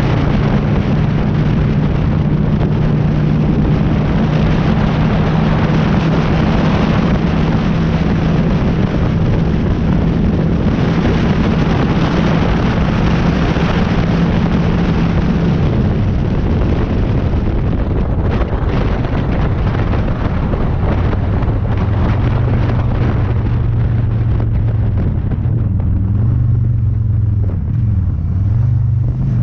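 Honda Shadow's V-twin engine running on the road, with wind rushing over the microphone. The engine note holds steady, then drops lower about halfway through as the bike slows, dips again near the end and climbs back up just before the end.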